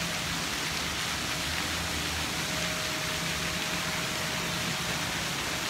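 Steady outdoor background noise: an even rushing hiss with a faint steady low hum under it.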